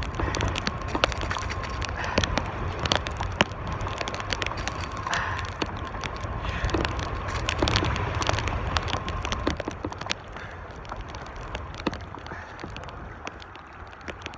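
Strong wind buffeting the microphone in a steady low rumble, with scattered sharp clicks and crackles of handling. A faint steady tone fades out about two-thirds of the way through.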